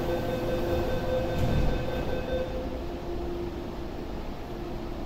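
An Airport Express train standing at the platform, giving off a steady hum of several pitches over a low rumble; the higher tones die away about halfway through.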